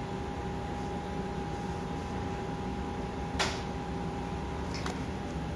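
Steady room hum with a faint constant tone, broken by one short light tap about three and a half seconds in and a fainter tick a second and a half later.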